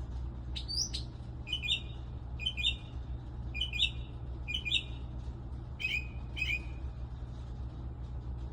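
A bird calling at night: short, sharp chirps, mostly in doubled notes, repeated about once a second and stopping near the end. A steady low hum runs underneath.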